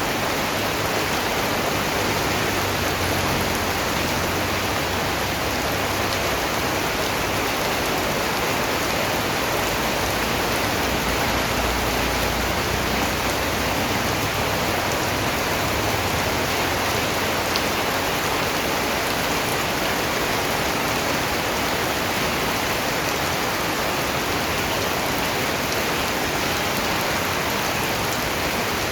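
Steady rain falling, an even hiss of raindrops that stays the same throughout.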